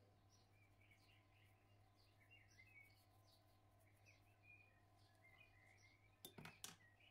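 Faint, irregular bird chirps over a steady low hum, with a few sharp clicks about six seconds in.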